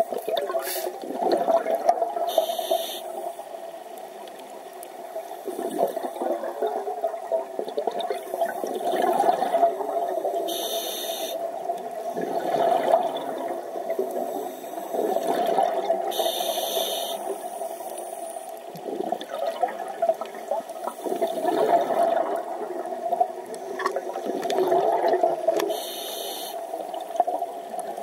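A scuba diver's breathing heard underwater: gurgling, bubbling exhalations from the regulator that swell and fade every few seconds, with a short hiss four times, typical of an inhalation through the regulator.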